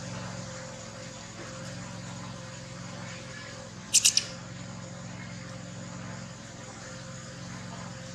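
Baby monkey giving three quick high-pitched squeaks about four seconds in, over a steady low hum.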